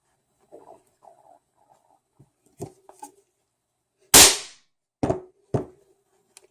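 A toy cap, set off by a hammer blow on a bolt resting on it, goes off with one loud sharp bang about four seconds in. Light taps come before it and two sharp hammer knocks on the bolt follow, each with a brief metallic ring.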